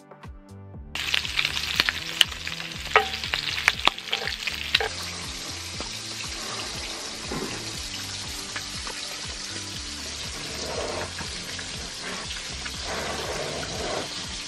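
Bacon frying in a cast-iron skillet: a loud sizzle that starts about a second in, with sharp pops and crackles of spitting fat over the first few seconds, then a steadier sizzle that cuts off suddenly at the end. Background music plays underneath.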